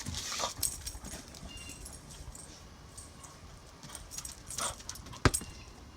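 Quiet sounds of a dog moving about, with scattered small clicks and knocks and one sharp click about five seconds in.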